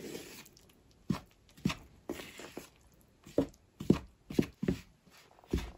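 A spoon stirring flour into a yeast-water mixture in a plastic mixing bowl: soft scraping with several irregular knocks of the spoon against the bowl.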